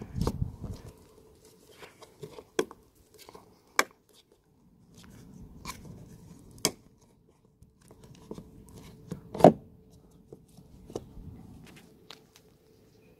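Volkswagen Golf VI rear VW badge being pressed and seated into its opening in the tailgate: a series of plastic clicks and knocks, the loudest about nine and a half seconds in, over soft handling rustle.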